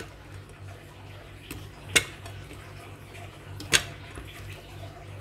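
Two sharp clacks of kitchenware, under two seconds apart, as onion is put into a blender jug, over a low steady hum.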